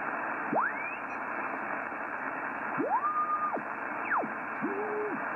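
Yaesu FTdx3000 HF transceiver's receiver hissing with band noise as its VFO knob is turned across the 40-metre band, with four whistles gliding up or down in pitch as the tuning sweeps past signals, one held briefly in the middle. A nearly dead band: "pretty quiet... pretty dead out there."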